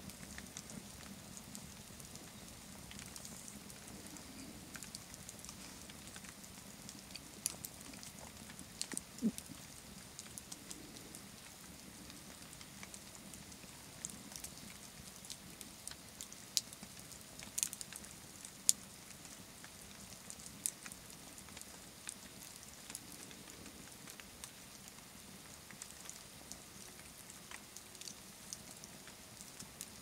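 Campfire of charred logs burning low to glowing embers, crackling: scattered sharp snaps and pops over a faint steady hiss, thicker for a few seconds around the middle.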